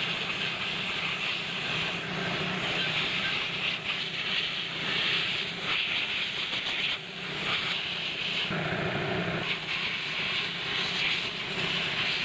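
A steady jet of air hissing, with brief breaks about four and seven seconds in.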